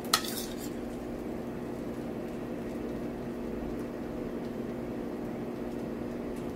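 A metal spoon clinks sharply once against a steel plate just after the start while filling is spooned out, followed by a steady low hum with a few faint scrapes of the spoon on the plate.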